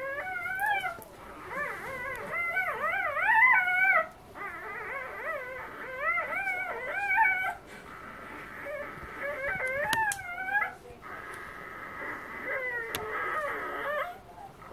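A three-day-old Siberian husky puppy squealing and whining while nursing, in repeated bouts of wavering cries that rise and fall in pitch, with short pauses between them.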